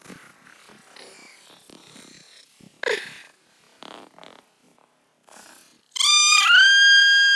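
Faint scratching and rustling, then about six seconds in a loud, high-pitched kitten cry that steps up in pitch and holds steady.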